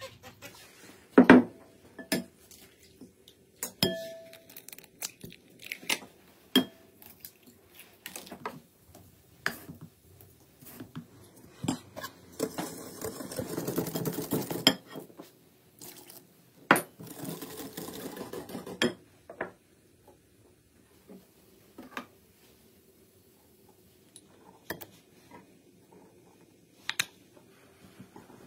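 Kitchen utensils clinking and knocking against a glass mixing bowl, with a few seconds of fast wire-whisk beating of a creamy mixture in the bowl midway through. The last third is quieter, with only an occasional clink.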